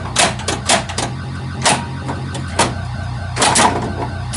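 A 1982 Bally Vector pinball machine in play: its steady, pulsing low background game sound runs under sharp mechanical clacks from the playfield, several close together about half a second in and again near the end.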